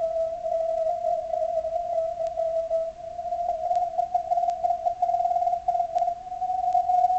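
Morse code (CW) signals from an HF receiver, an Icom IC-7600 with its CW filter narrowed to 50 Hz: a single thin tone keyed rapidly on and off. About three and a half seconds in, the filter passband is shifted and a slightly higher-pitched tone takes over. Faint static clicks are heard behind it.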